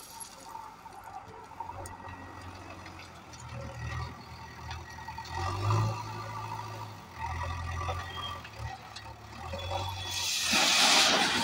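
JCB backhoe loader's diesel engine running and revving in pulses as it works its loaded bucket. About ten seconds in comes the loudest sound, a load of ballast stone pouring from the bucket into a metal hopper with a loud rush.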